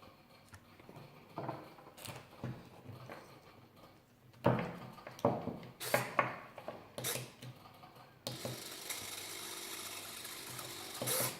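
Small screw being lined up and driven into an RC plane's servo arm: scattered light clicks and taps. About eight seconds in, a steady whirring starts and runs for about three seconds.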